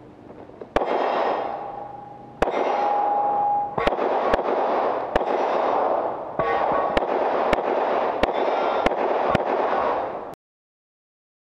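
Pistol fire during a stage of a match: about a dozen shots at uneven intervals, some coming in quick strings about half a second apart. Each shot is followed by a long ringing wash, and the sound cuts off abruptly near the end.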